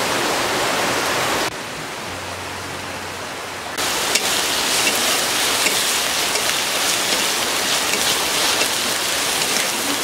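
Onion-garlic paste frying in hot soybean oil in a wok as a spatula stirs it: a steady sizzle with fine crackles. The sound drops to a quieter stretch with a low hum about a second and a half in, and the sizzling comes back sharply near four seconds.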